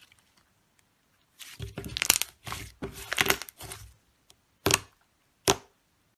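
Slime being squeezed and worked by hand: a run of crackling, crunching squishes about a second and a half in, then two short sharp pops near the end.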